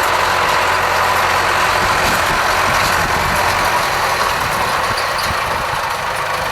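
Massey Ferguson 575 tractor's four-cylinder Perkins diesel running steadily while driving a square baler through hay, with the baler's machinery working alongside.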